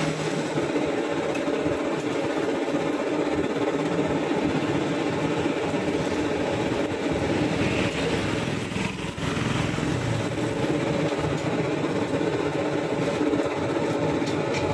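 Steady engine-like drone that runs without a break, dipping briefly about nine seconds in.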